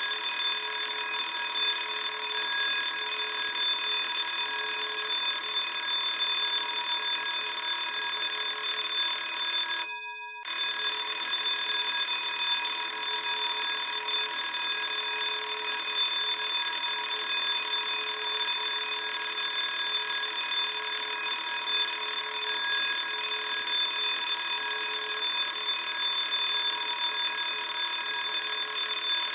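Classic school bell ringing continuously and loudly; about ten seconds in it stops, dies away for a moment and starts ringing again.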